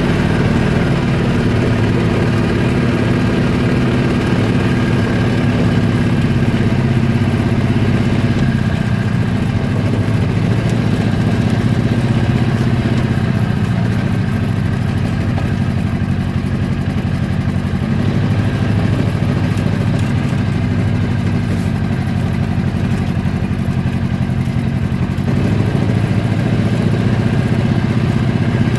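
An engine running steadily at low revs, with an even low hum that continues unbroken.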